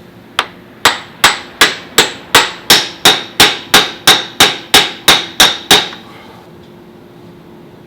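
Hammer striking metal: about fifteen evenly spaced, ringing blows, nearly three a second, stopping about six seconds in.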